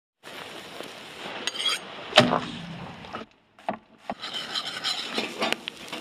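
Meat grilling over a fire in a hinged wire grill basket: a steady sizzle and crackle with several metal knocks, the loudest a clank about two seconds in. The sound drops out briefly just past the middle.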